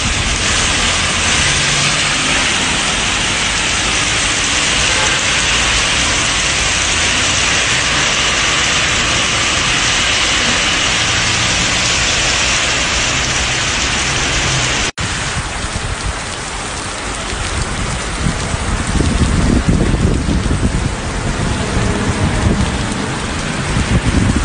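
Heavy tropical rain pouring down steadily onto the road and pavement. The sound drops out for an instant about halfway through, and in the last few seconds a low rumble rises under the rain.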